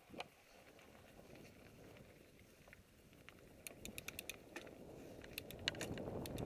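Fuji Thrill LTX mountain bike rolling down a dirt singletrack trail: tyre noise and wind on the microphone build up as it gathers speed. Bursts of small clicks and rattles come from the bike over the bumps, about halfway through and again near the end.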